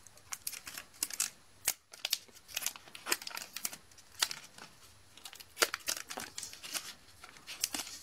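Foil wrapper of a Pokémon trading-card booster pack crinkling and crackling in irregular snaps as fingers work at it, trying to tear it open.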